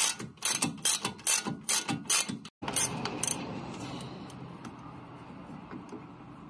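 Socket ratchet clicking as a lower strut bolt is backed out, about three clicks a second. A little before halfway the clicking stops, leaving softer steady noise with a few faint ticks.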